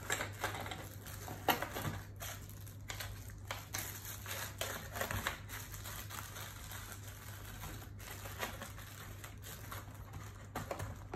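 Small plastic bags of screws and wall plugs crinkling as they are handled and pressed into the compartments of a plastic tool case, with scattered light clicks and taps throughout.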